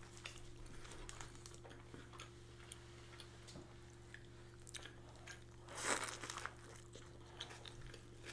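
Close-miked eating: faint chewing and small wet mouth clicks, with one louder crunch about six seconds in.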